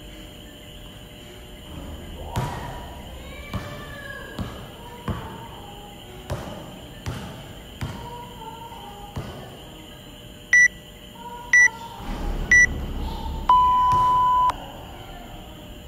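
Interval timer counting down a work interval: three short beeps about a second apart, then one long, lower beep of about a second as the interval ends. Under it, a basketball being dribbled on the court, a thud roughly every three-quarters of a second.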